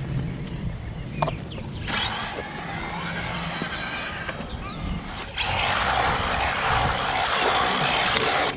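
1/10-scale electric RC cars driving on asphalt: a whining motor and tyre noise, rising and falling in pitch. About five seconds in the sound gets suddenly much louder as the yellow Tamiya Honda Civic runs close by, with a steady high whine over the tyre hiss, then cuts off just before the end.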